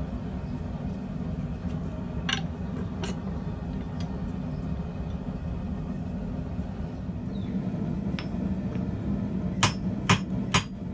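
Steady low hum with a couple of faint clicks while annealed copper sheet is worked by hand in a vise. Near the end, a hand hammer strikes a glowing steel bar on the anvil about four times, a little over two blows a second.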